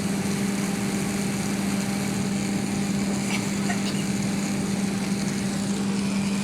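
Steady cabin drone inside an Airbus A380 on the ground: an even rushing hum with one constant low tone, unchanging throughout.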